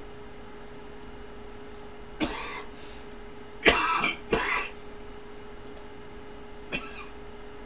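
A man coughing and clearing his throat in short bursts: one about two seconds in, a louder pair around four seconds, and a brief one near the end, over a faint steady hum.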